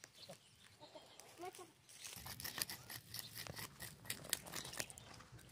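A small blade scraping and digging into dry soil: a run of quick scratches and clicks, busier from about two seconds in.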